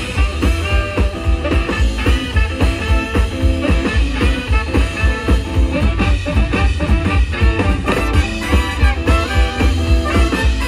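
Live swing band playing at full volume with a steady, driving beat.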